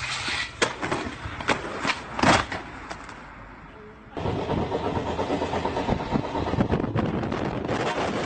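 A few sharp clacks and knocks of a skateboard on a stair handrail, the loudest a little past two seconds in. About four seconds in, the sound cuts to the steady rush and rattle of a moving train heard at an open window.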